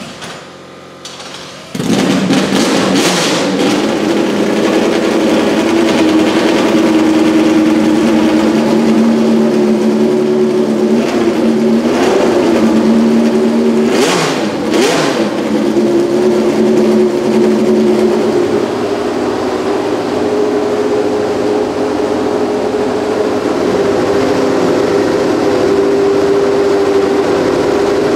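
Tyrrell 012's Cosworth DFY V8 racing engine fires up about two seconds in after a short lower whirr, then idles with a few short throttle blips.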